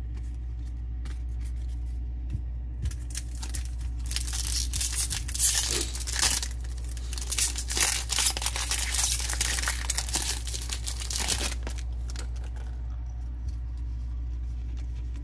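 Foil wrapper of a Topps 2024 Series 1 baseball card pack being torn open and crinkled by hand, from about four seconds in until near the end, over a steady low hum.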